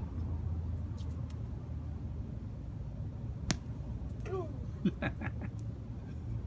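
Rubber mallet striking crab apples on asphalt, with one sharp knock a little past halfway and a few fainter taps, over a steady low rumble of outdoor background noise.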